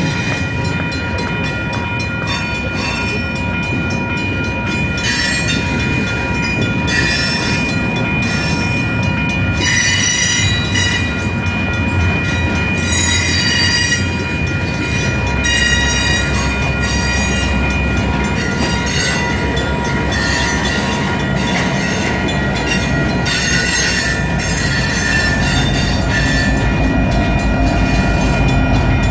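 Long Union Pacific double-stack intermodal freight train rolling slowly past, its wheels clacking irregularly with a steady high squeal of wheels on rail. Near the end a diesel locomotive's low, even rumble comes in as it passes.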